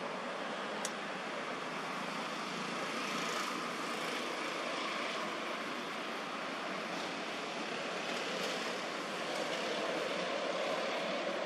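Steady outdoor background noise, an even hiss with no animal calls, with one short click about a second in.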